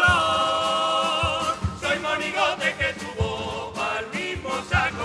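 Carnival comparsa chorus singing in harmony, accompanied by Spanish guitars, with a low drum stroke beating under the song.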